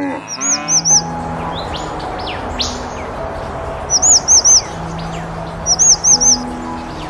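A small bird calling in three quick runs of three high, arched chirps, over a steady hiss and background music. A low call drops away in the first moment.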